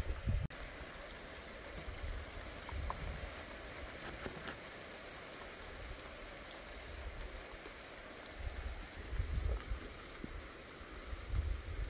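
Thunderstorm rain falling steadily, with low rumbles that swell and fade at intervals, strongest about nine and eleven seconds in.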